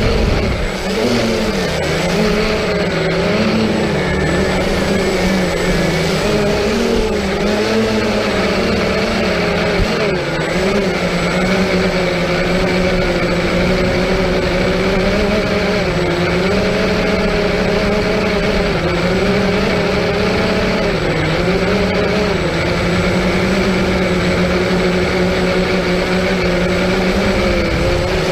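Multirotor drone's motors and propellers humming steadily, the pitch wavering up and down as the motors change speed.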